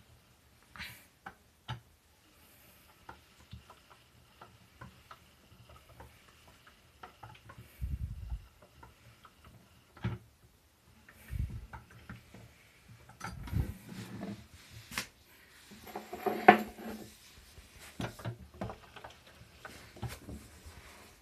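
Miele front-loading washing machine on a cleaning cycle, its drum turning with water inside: scattered clicks and knocks with a few soft low thuds, and a louder knock with a short hum about sixteen seconds in.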